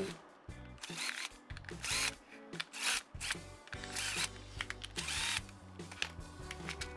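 Cordless drill-driver running in about five short bursts, its motor whine rising and falling each time, as it backs the screws out of another drill's plastic handle housing.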